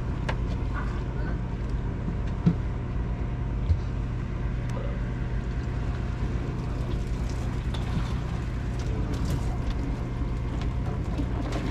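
Fishing boat's engine running at a steady drone, with two sharp knocks about a second apart a few seconds in.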